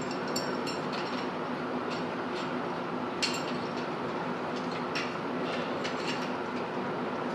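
Light metallic clicks and clinks as steel M1 Garand rifle parts are handled and fitted together by hand, over a steady room hum. The sharpest click comes a little after three seconds in.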